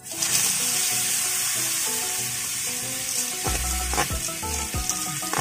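Small snails in their shells pour into hot oil in a metal wok and set off a sudden, loud sizzle that keeps going. From about three and a half seconds in, a metal ladle stirs them, with repeated scraping and knocking strokes against the pan.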